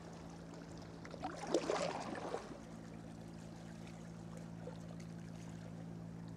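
Sea water lapping and gurgling against a kayak's hull, with a brief louder splash of trickling water about a second and a half in.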